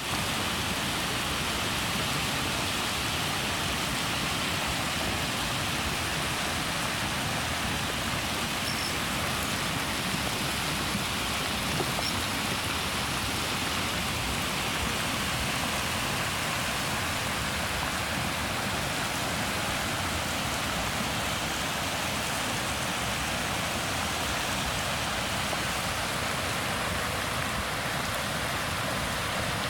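Steady splashing and rushing of churning water from a boiling hot spring surging in its pool, together with river rapids running alongside.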